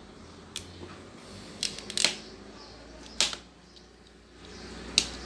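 Hand crimping tool clicking as cable terminals are crimped: about five sharp clicks at uneven spacing, the loudest near the end.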